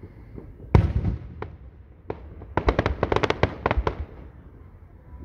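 Aerial fireworks going off: a loud bang about three-quarters of a second in with a short rumbling tail, a couple of single sharp pops, then a quick run of about a dozen crackling reports between about two and a half and four seconds in.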